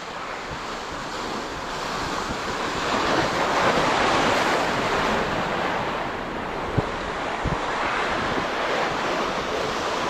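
Ocean surf washing in, swelling to its loudest a few seconds in and then easing, with wind rumbling on the microphone. One brief sharp tick about seven seconds in.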